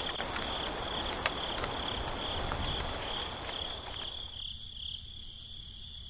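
Steady rain with crickets chirping in a quick pulsing rhythm. The rain cuts off suddenly about four seconds in, leaving the crickets' high trill.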